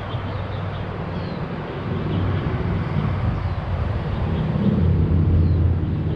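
Steady low rumble of traffic crossing the elevated highway overhead, swelling louder about two seconds in and again past the middle.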